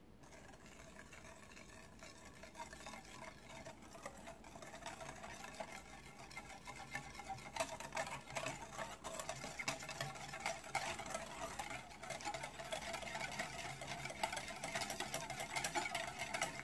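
Wire balloon whisk beating egg-yolk batter in a glass bowl: rapid clicking and scraping of the wires against the glass, louder from about halfway through. The batter is being whisked until light and foamy.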